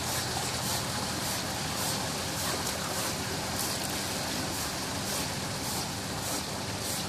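Small stream of water running and trickling through a stone channel, a steady rushing noise, with a steady low hum underneath.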